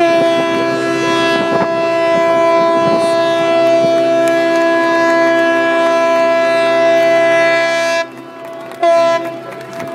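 A loud horn blast, a steady chord of several tones held for about eight seconds, cut off, then sounded again briefly about a second later.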